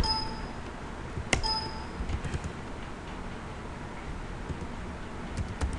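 Two short electronic chimes from the computer about a second and a half apart, the terminal's error bell sounding as an incomplete command is entered, with a few keyboard keystroke clicks after them.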